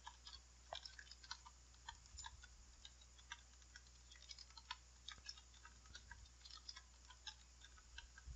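Faint, irregular clicking of computer keyboard keys, a few strokes a second.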